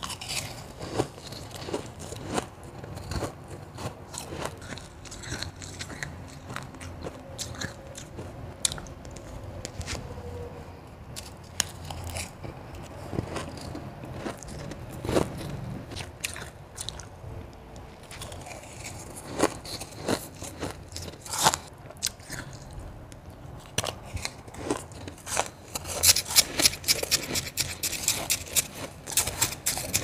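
Close-miked crunching and chewing of crushed and powdery molded ice taken in big bites, along with a wooden spoon digging into the ice in the bowl. The crunches come thicker and louder near the end.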